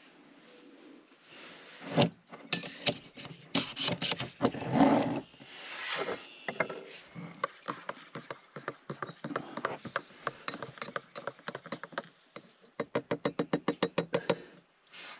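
Knocks, thumps and rustling of gear being handled at close range, ending in a fast, evenly spaced run of about ten clicks a second for roughly two seconds.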